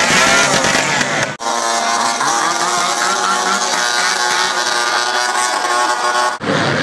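Loud engine noise, rising and falling in pitch as if revved, breaking off and changing abruptly about a second and a half in and again near the end.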